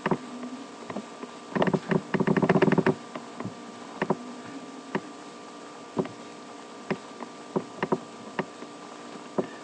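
Computer mouse clicks and a quick burst of keyboard typing about one and a half to three seconds in, over a steady faint hum.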